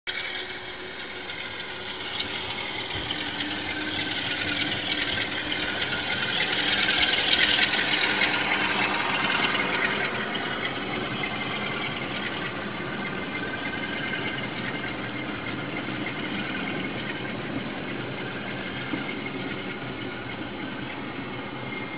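Model railway freight train running past on the layout track: a steady rolling and motor noise of wheels on rail, loudest about seven or eight seconds in and then easing.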